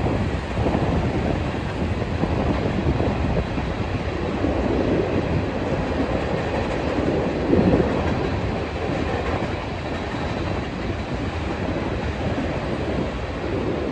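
Freight train cars rolling past on the tracks: a steady rumble of steel wheels on rail, a little louder for a moment about halfway through.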